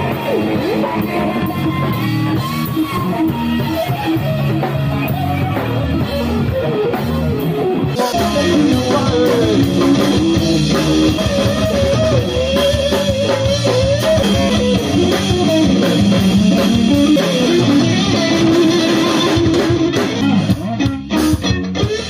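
A live rock band plays: electric guitar over bass guitar and a drum kit, with a melodic line that bends up and down. About eight seconds in the sound turns brighter and fuller.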